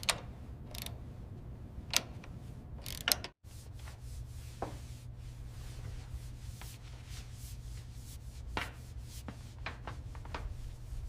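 Scattered sharp clicks and light taps of workshop tools being handled, over a steady low hum. The sound cuts out briefly about three seconds in.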